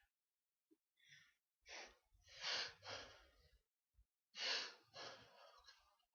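A person sneezing, with sharp breathy gasps around the sneezes; the two loudest bursts come about two and a half and four and a half seconds in.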